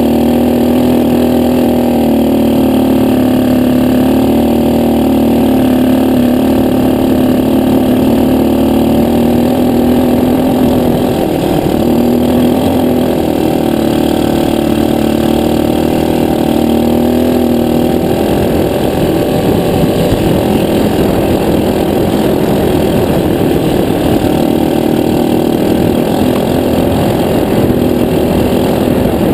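Jaguar ATV Agro quad's engine running as the quad rides over sand, heard close from the rider's chest. The note holds steady, dips briefly about eleven seconds in, and turns rougher and more uneven about two-thirds of the way through.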